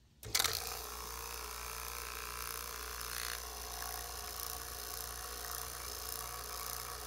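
HVAC vacuum pump switching on about a quarter second in with a sharp burst, then running steadily with a low hum as it starts pulling a vacuum on a water-filled jar to boil off the water.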